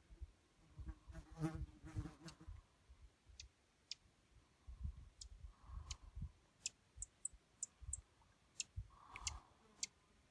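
An insect buzzing close by for about a second, a little after the start. Scattered short, high chip notes from a flycatcher run through, with low wind buffeting on the microphone.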